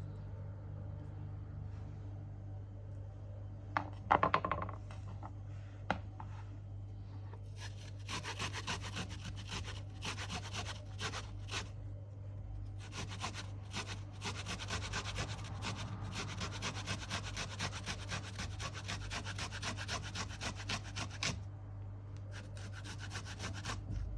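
A couple of knocks, then rapid repeated scraping strokes for about fourteen seconds, with a short break partway through, over a steady low hum.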